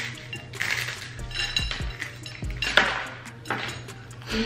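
Dry, uncooked instant ramen noodle block crunching as it is bitten off and chewed, in several crackly bursts over background music.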